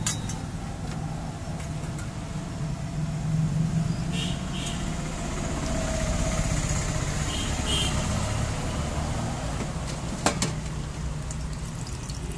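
Street traffic: a steady low engine rumble, with one sharp knock about ten seconds in.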